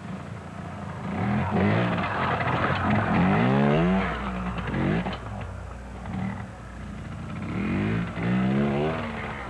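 Trials motorcycle engine revving in blips as the rider works over rocks, its pitch climbing and falling with the throttle. There is a long spell of revving from about a second in to about four seconds, and another near the end.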